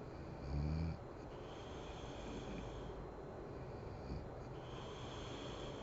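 A sleeping woman snoring: one loud, low snore about half a second in, then quieter breathing.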